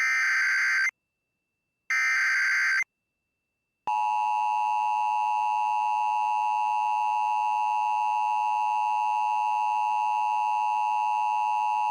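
Two short bursts of Emergency Alert System SAME header data, a harsh digital screech about a second long each, a second apart. After another second of silence the steady EAS two-tone attention signal starts about four seconds in and holds unbroken.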